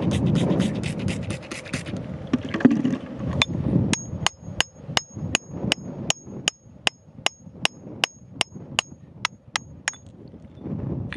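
A pointed steel tool tapping and chipping at stony soil around a crystal: sharp, ringing metal-on-stone clicks, about three a second, starting a few seconds in and stopping near the end. A rough scraping noise comes before the tapping begins.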